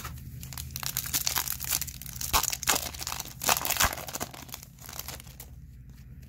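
The foil wrapper of a Topps Chrome baseball card pack crinkling and tearing as it is pulled open by hand: a dense crackle, loudest in the middle, dying away about five and a half seconds in.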